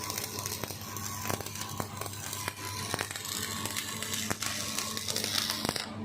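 Electric arc welding: the arc crackling and spitting with sharp pops over a steady low hum, cutting off abruptly near the end.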